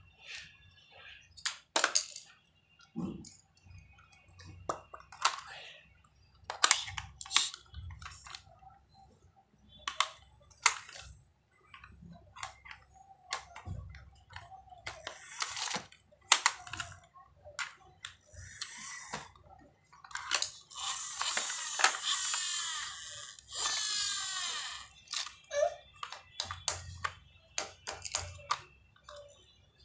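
Irregular clicks and knocks of small hard objects being handled, like plastic toy tools and parts, with a few seconds of louder hissing about two-thirds of the way in.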